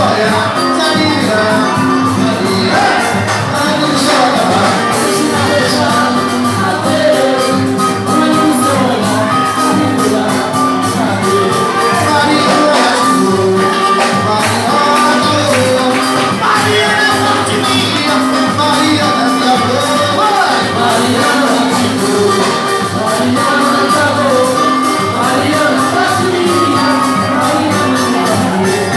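Live band music with steady, driving percussion and a voice singing over it.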